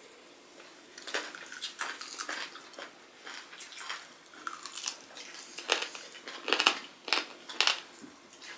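Close-up sounds of two people chewing a meal of polao rice, chicken roast and mutton curry eaten by hand, with many short, wet clicks and smacks from the mouth. The clicks begin about a second in.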